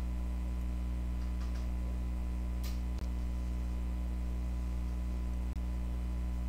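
Steady electrical mains hum with its overtones. It briefly cuts out twice, and a faint click sounds a little before the first cut.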